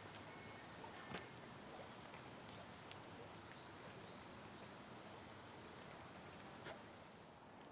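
Quiet woodland ambience: faint, high bird chirps with a few soft, sharp clicks scattered through.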